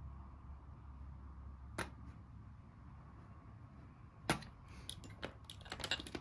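Hard objects knocking and clicking: a single knock, a louder knock about four seconds in, then a quick run of small clicks near the end, over a low steady rumble.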